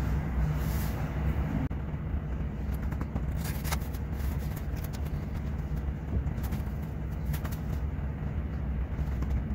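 Steady low hum of data-center rack cooling and equipment fans, with a few light clicks and knocks as a supervisor module is handled and slid into a Cisco 4507 switch chassis.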